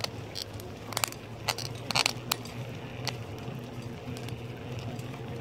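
Handling noise from clothing rubbing and scraping on the camera's microphone during a bicycle ride: scattered crackles, loudest about two seconds in, over a steady low hum.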